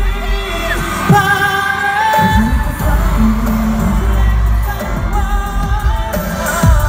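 Live pop song sung by a male vocalist through the arena sound system, with held and gliding notes over a backing track with heavy bass.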